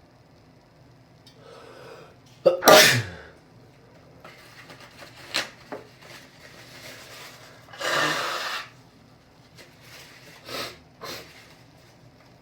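A person sneezes once, hard, about two and a half seconds in, after a drawn-in breath, then sniffs and breathes heavily. It is an allergic sneezing fit.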